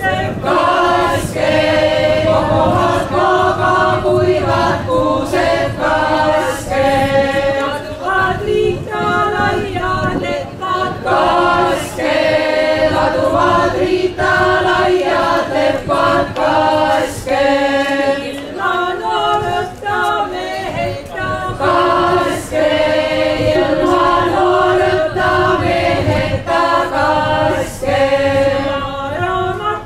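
Folk vocal ensemble singing unaccompanied, several voices together in harmony with a lower voice part beneath the melody, phrase after phrase.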